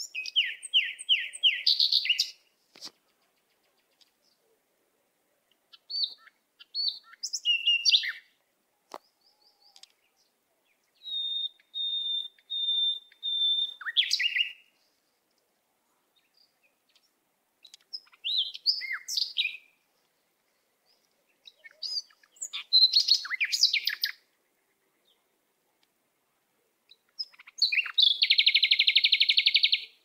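Small songbirds singing in about six short phrases a few seconds apart. The phrases are runs of quick chirping notes, one even series of clear whistled notes, and a fast, dense trill near the end.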